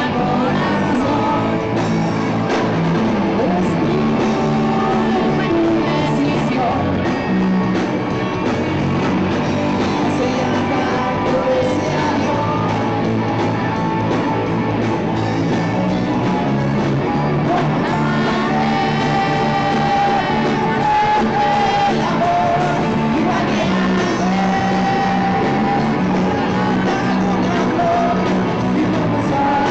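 A live rock band playing: electric guitars with a male lead singer, loud and continuous.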